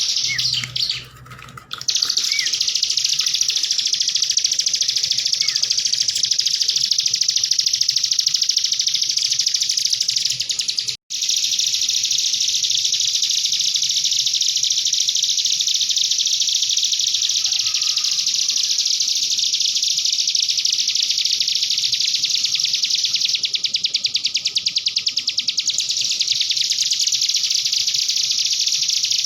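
Cigun songbird singing a continuous, rapid, canary-like trilling song, with a short dip near the start and a momentary break about eleven seconds in.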